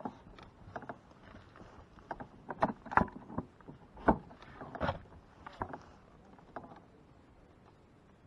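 Irregular knocks and clatter of fishing gear being handled against a kayak's hull, a handful of sharp hits with the loudest about three and four seconds in, dying away near the end.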